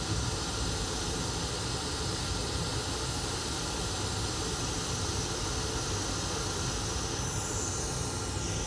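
Hot air rework station blowing a steady hiss of air over a motherboard, heating the solder on the pad to reflow a replacement MOSFET.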